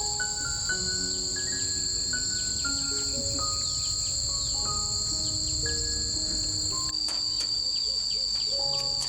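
Insects chirring steadily at a high pitch, with soft background music of slow single held notes over them. The insect sound shifts slightly about seven seconds in.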